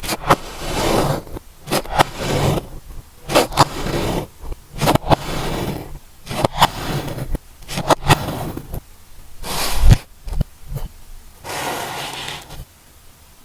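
Kinetic sand being scraped and cut by hand, in a series of short scraping strokes with sharp clicks in between.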